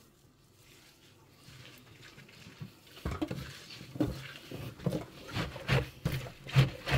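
Bare hands squeezing and kneading salted shredded wild garlic in a stainless steel sink, rhythmic squeezing strokes about twice a second starting about three seconds in. This is the kneading with salt that works the juice and sharpness out before the greens are packed into a jar to ferment.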